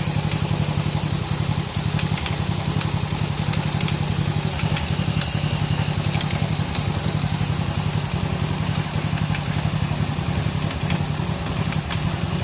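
110 cc single-cylinder motorcycle engine idling steadily, with an even, unchanging beat.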